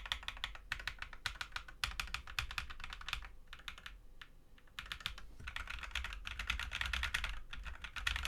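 Fast typing on an AKKO 3061S 60% plastic-case mechanical keyboard with factory-lubed Akko Cream Yellow Pro linear switches: a dense run of fairly quiet keystroke clacks. The keystrokes thin out for about a second in the middle, then resume.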